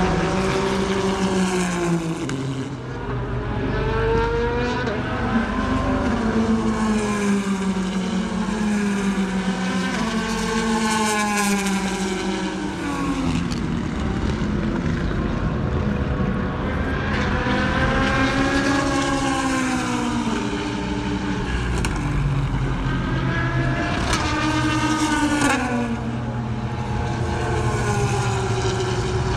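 Race cars at speed on a circuit, going by one after another, each engine note rising and then falling as it passes.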